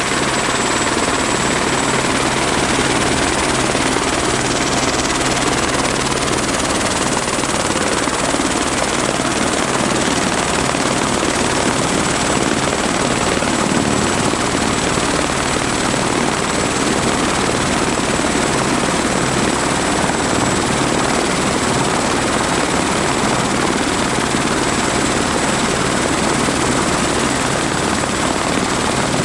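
Airbus AS350 Écureuil turbine helicopter running on the ground with its rotor turning: a steady, loud rush of rotor and engine noise with a thin high turbine whine and a low hum.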